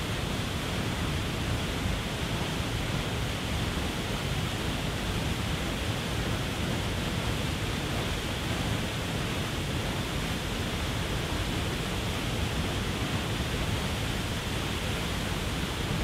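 Waterfall pouring over a rock ledge: a steady, even rush of falling water with a deep rumble underneath.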